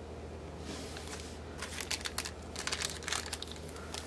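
Clear plastic sticker packaging crinkling and rustling as it is handled: a soft rustle about a second in, then a run of short crackles through the middle.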